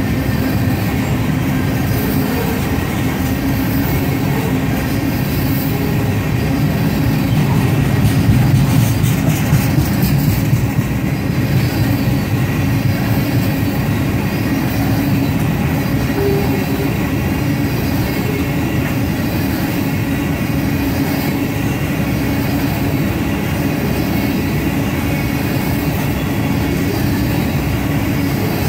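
Railroad tank cars of a unit oil train rolling steadily past, a continuous rumble of steel wheels on rail.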